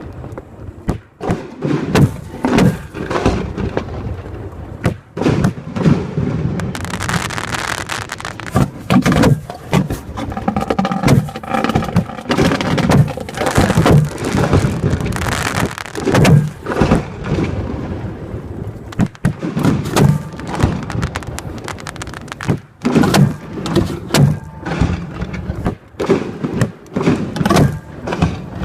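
Fireworks shells launched from mortar tubes at close range, a rapid string of thuds and bangs one after another with hardly a pause.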